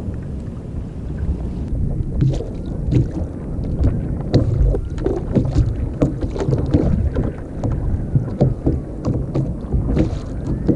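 Water slapping and knocking against a kayak's hull, with wind on the microphone and many small irregular knocks.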